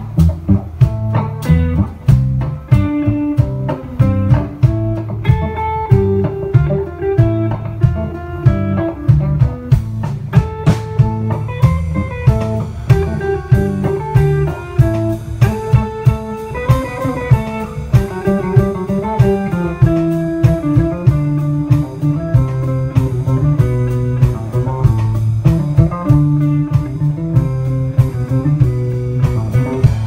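A live rock band playing: electric guitar lines over bass guitar and a drum kit keeping a steady beat.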